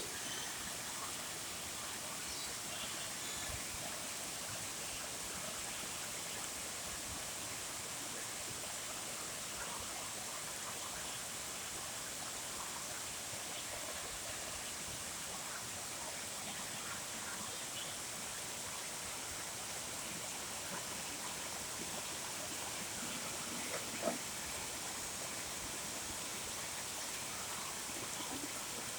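Rain falling steadily in a rainstorm, an even hiss with no let-up. One short sharp knock stands out about 24 seconds in.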